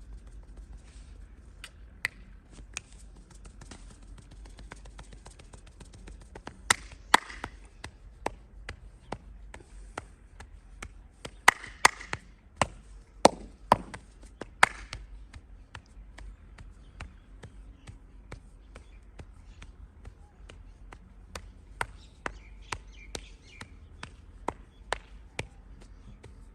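Irregular sharp hand slaps and taps of a head, neck and back massage, the loudest strikes coming about seven seconds in and in a cluster between about eleven and fifteen seconds.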